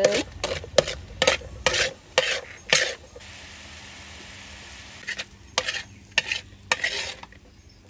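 Metal spatula scraping and stirring a shrimp-paste chili sauce in a metal wok, about a dozen quick strokes. A pause of about two seconds in the middle where the bubbling sauce sizzles steadily.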